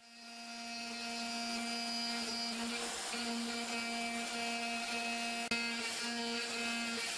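CNC machining centre spindle running with an end mill cutting a mold core, a steady whine of a few held tones that dips briefly about three seconds in. A single sharp click comes about five and a half seconds in.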